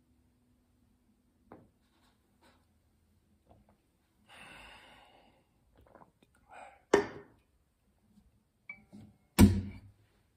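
A last low note on an acoustic guitar fading away, then handling noises: a small click, a short rustle, and two sharp knocks about two and a half seconds apart, the second the loudest.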